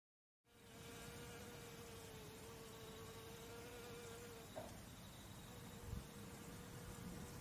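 Honeybee buzzing: a faint, steady hum that starts just under half a second in, with a brief higher blip about halfway through and a soft low thump near six seconds in.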